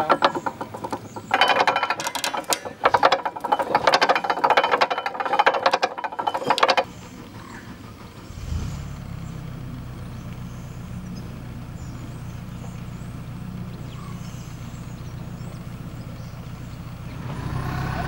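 Hand-cranked gear winch clattering fast and evenly as its handle is wound to lower a barrier arm, stopping about seven seconds in. A second or so later a narrowboat's engine runs at a low, steady idle, growing louder near the end.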